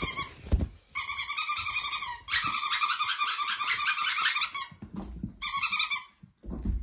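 Squeaky plush dog-toy squirrels squeezed rapidly, giving long runs of fast, high-pitched squeaks on one note in three or four bursts, the longest lasting about two and a half seconds.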